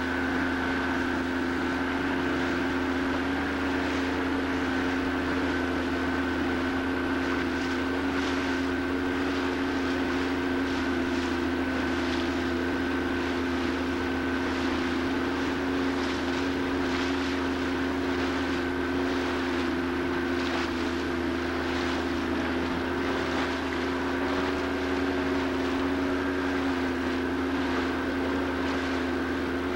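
Boat engine running at a steady speed, heard from aboard: a constant drone with a higher steady whine above it and irregular hiss over the top.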